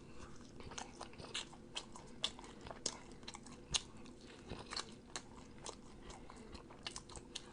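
A person chewing T-bone steak close to the microphone: faint, irregular mouth clicks, several a second.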